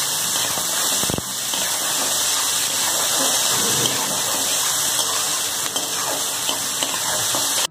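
Chopped onions frying in hot oil in a metal kadhai: a steady hissing sizzle, with a spatula stirring and scraping through them.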